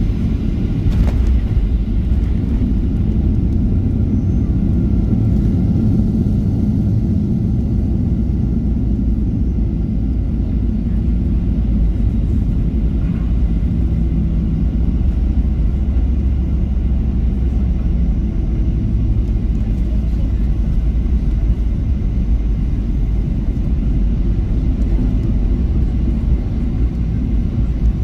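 Steady low rumble heard inside the cabin of a Boeing 737-800, beside its CFM56-7B engine, as the airliner rolls along the runway after landing.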